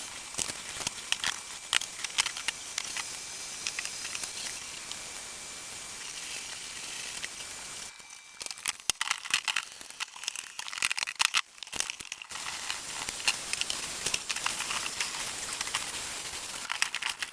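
Rustling and crinkling with many small, sharp clicks over a steady hiss; the low background drops away for a few seconds around the middle.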